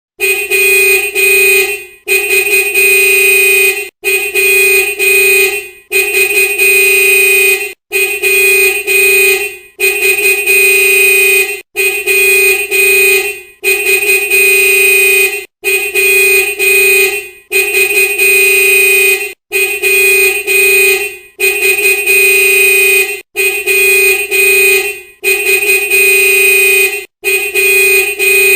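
Vehicle horn honking again and again, the same held honk repeating about every two seconds with a short break between blasts. Each blast stutters briefly near its start before holding steady.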